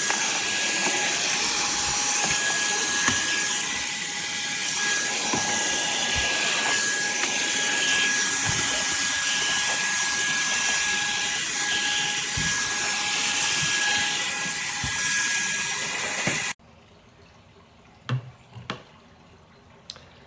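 Cordless handheld vacuum's brushless motor running steadily, a rushing airflow hiss with a thin high whine, then switched off abruptly near the end, followed by a few light clicks.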